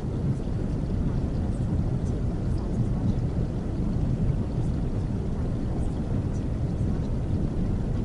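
Calm, steady noise used as the masking track of a subliminal recording: a deep, even rumble carrying most of its weight in the bass, with faint scattered ticks high above it.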